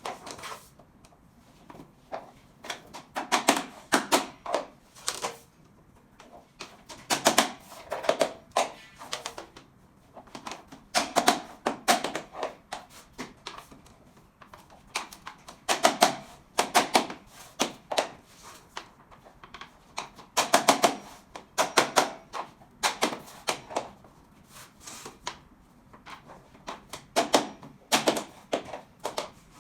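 SPC click-lock floor planks being knocked into place with a mallet or tapping block: bursts of quick, sharp strikes, several at a time, repeating every few seconds.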